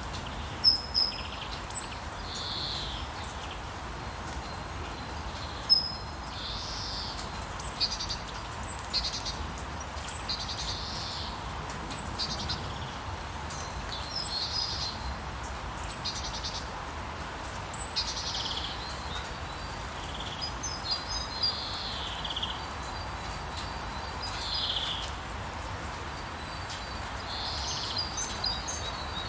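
Steady rain hiss with songbirds chirping in short calls every second or two.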